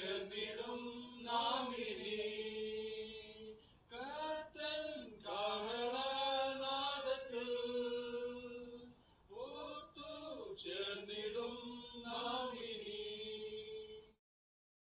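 Men's voices singing a slow hymn without accompaniment into a microphone, in long phrases of held notes. The singing breaks off abruptly near the end.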